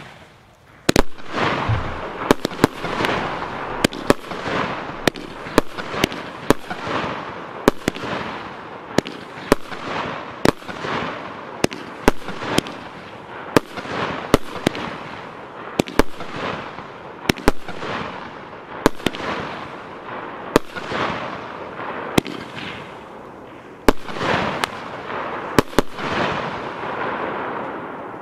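Piromax 'Ventus' 19-shot 30 mm firework battery (cake) firing: a long series of sharp bangs as shots launch and burst, about one or two a second, each trailing off in a fading rush of sound. The bangs stop a couple of seconds before the end, leaving the last burst fading out.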